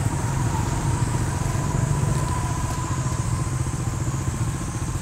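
A small engine running steadily with a low, evenly pulsing rumble.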